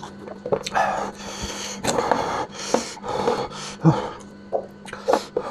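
Close-up eating sounds of a person working on a spicy lamb head: chewing and sucking at the meat, with sharp wet clicks and a few breathy, hissing stretches each about a second long.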